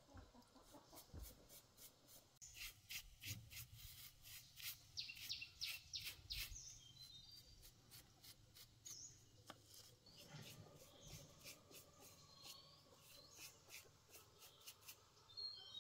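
Paintbrush bristles scrubbing the metal valve plate and cylinder of a small air compressor pump in quick short strokes, faint and scratchy. A few faint bird chirps.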